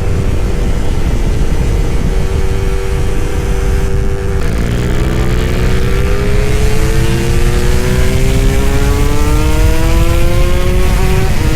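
Suzuki Satria two-stroke motorcycle engine pulling hard while riding at speed. It holds a steady note, shifts gear about four and a half seconds in, then climbs steadily in pitch through the next gear until another shift near the end, over wind rushing past the microphone.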